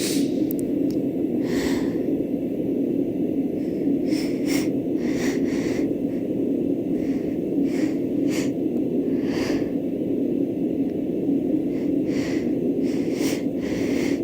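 Short, irregular sniffs and sharp nasal breaths, about a dozen, as a sneeze is being coaxed up. Under them runs the steady noise of a bedroom sound machine.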